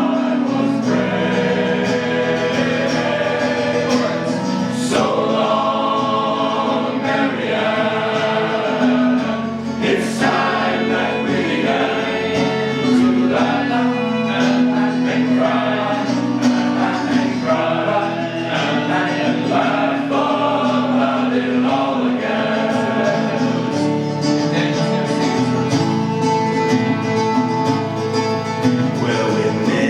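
Music with several voices singing together in choir style, holding long sustained notes.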